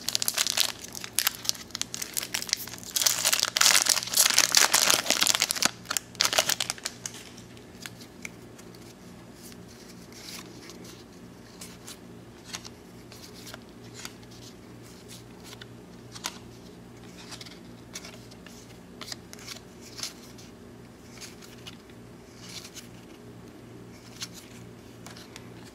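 Plastic wrapper of a 1993 Donruss baseball card pack crinkling and tearing as it is opened, for about the first seven seconds. After that, faint scattered clicks of the cards being slid one behind another through the stack.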